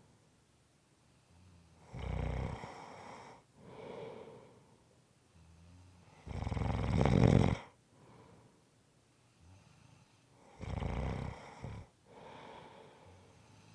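A person snoring: three loud snores about four and a half seconds apart, each followed by a softer breath, the middle one the loudest.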